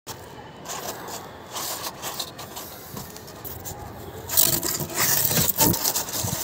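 Thermocol (polystyrene foam) sheets being handled and rubbed together, with scraping and rubbing noises that grow louder from about four seconds in.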